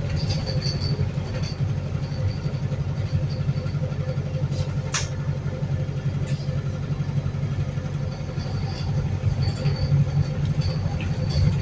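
Wright New Bus for London hybrid bus heard from inside while under way: a steady low engine drone with a repetitive high click-click that is put down to the fuel injectors. One sharp click comes about five seconds in, and a faint high turbo whistle creeps up in pitch near the end.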